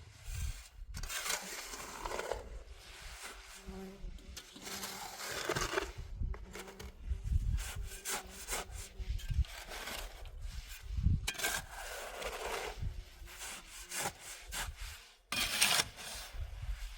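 Irregular rasping, rubbing strokes against wood, repeated throughout, with a short pause near the end.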